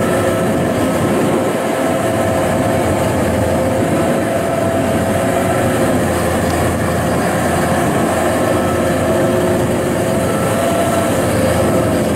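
Kubota rice combine harvester's diesel engine and threshing works running steadily under load as the machine crawls on its tracks through soft, sticky paddy mud: an even drone with several held tones.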